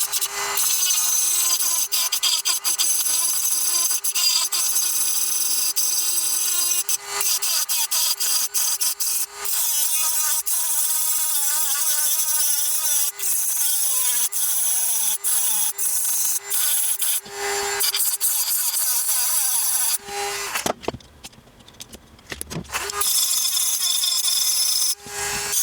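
Rotary tool (Dremel) grinding down raised bars inside an airsoft gearbox shell: a high motor whine with gritty grinding hiss, its pitch sagging and recovering as the bit bites. It stops for about two seconds near the end, then starts again.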